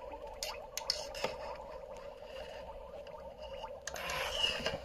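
Aquarium water gurgling steadily. A few light clicks of the glass lid being shifted come in the first second or so, and a short splashy rustle about four seconds in as a probe thermometer goes into the tank.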